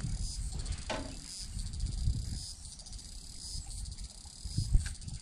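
Insects chirring in a steady, high, finely pulsing chorus, with irregular low rumbles and a thump near the end.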